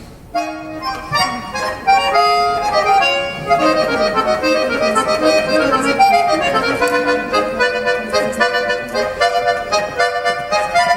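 Accordion playing a melody over held chords, the notes turning quicker and evenly pulsed in the second half.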